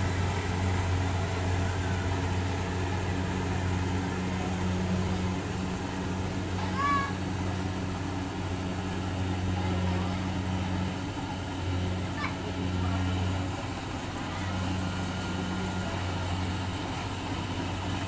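Kubota combine harvester's engine running steadily as it works through a rice paddy, a low even drone, with a couple of brief high chirps about 7 and 12 seconds in.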